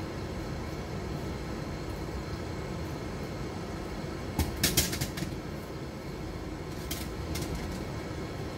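A steady low rumble, with a quick cluster of sharp clicks and knocks from a stainless steel cooking pot and wooden spatula being handled on the stove about halfway through, and two lighter knocks a couple of seconds later.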